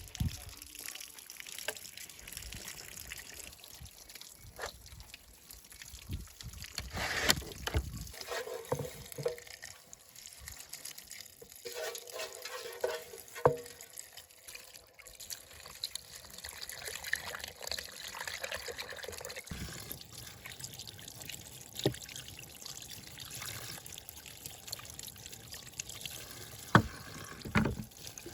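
Water pouring and trickling in a cooking setting, with a few sharp knocks of kitchenware scattered through it.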